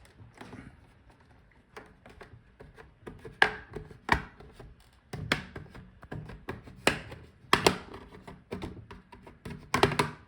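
Plastic clips of a laptop's bottom case snapping loose as a plastic pry tool is worked around the edge between the case and the palmrest. Irregular sharp clicks and snaps, with plastic scraping and rattling between them.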